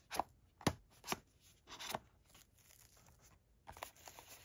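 Handling of a Blu-ray box set's cardboard packaging: three light clicks and taps in the first second or so, then a short scraping rustle and a few soft rustles.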